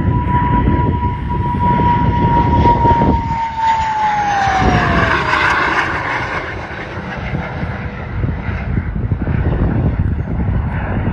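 L-29 Delfín jet trainer's Motorlet M-701 turbojet on a low pass. A steady high whine over a broad jet roar drops in pitch about four to six seconds in as the jet goes by.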